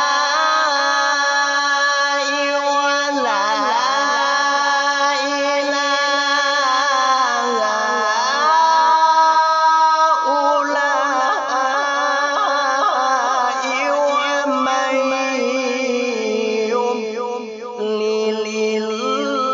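A male qari's high-pitched Quran recitation (tilawah): a long melismatic passage of held, wavering and sliding notes. It climbs to its loudest, highest stretch about halfway through, and there is a brief dip near the end.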